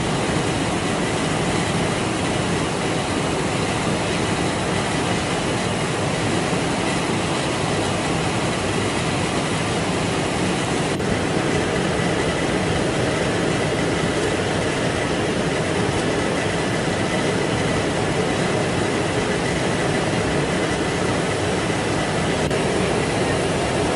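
Steady rushing airflow and engine drone of an aircraft in flight, heard from aboard, with a faint steady whine above it.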